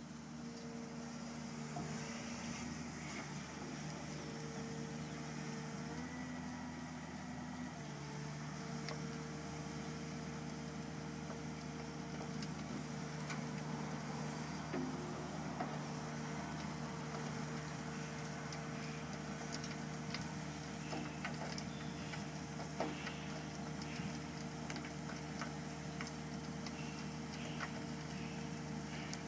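Komatsu PC200 excavator's diesel engine running with a steady drone while its rotary screening bucket turns and sifts soil. The engine note changes about eight seconds in, and light ticks and rattles come through in the second half.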